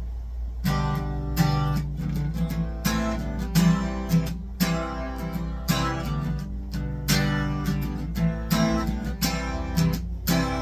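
Acoustic guitar strumming a song's intro, a run of chords that starts about a second in. A steady low hum sits underneath.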